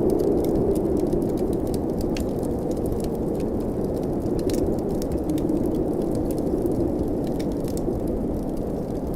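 Steady blizzard wind blowing, with a wood fire crackling over it in scattered small pops and snaps.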